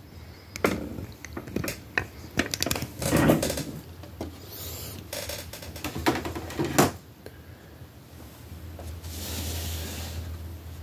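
Clicks and knocks of hard 3D-printed diorama pieces being handled and set down on a table, with a couple of heavier thuds and a short scrape near the end as a wall piece is slid into place.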